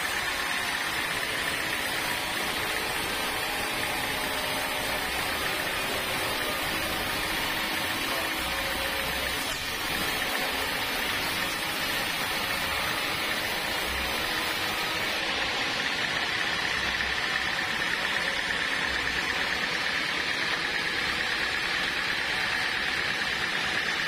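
Band sawmill running, its blade cutting lengthwise through a large block of dry hardwood, a steady machine noise with a high whine held throughout.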